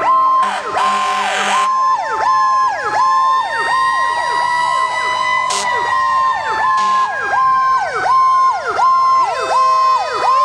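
Several fire engine sirens sounding together: one cycles quickly, dipping about twice a second, while another wails slowly, rising for about five seconds and then falling. Two short blasts cut through, one about half a second in and one near seven seconds.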